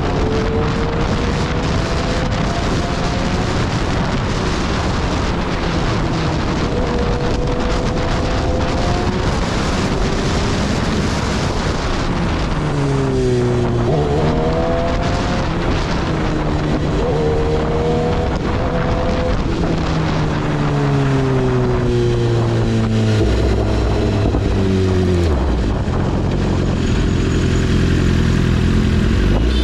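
Motorcycle engine running at speed. Its pitch rises as it accelerates and drops back at each gear change, over constant wind rush.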